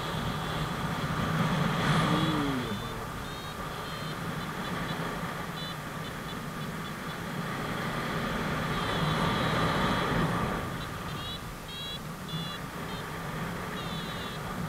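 Wind rushing over the microphone in flight under a paraglider, swelling twice, with a variometer's short, high beeps coming in quick groups.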